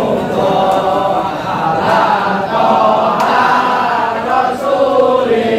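A crowd of many male voices chanting together in unison, with long held notes.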